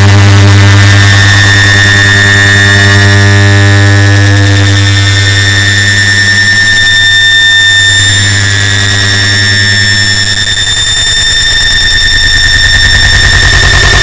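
An air conditioner's switch-on sound, stacked and amplified into a very loud, distorted blast: a steady low hum with high whining tones over a noisy hiss. About ten seconds in, the low hum breaks into a fast, rattling buzz.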